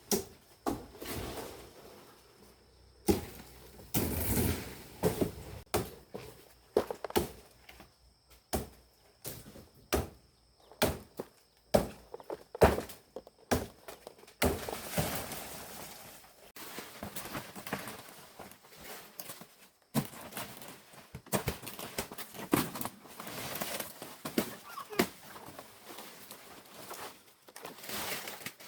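Irregular knocks and thuds, some sharp, with rustling between them.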